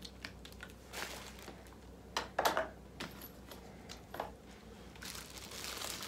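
Small plastic items handled with scattered light clicks and taps, then a plastic bag crinkling from about five seconds in.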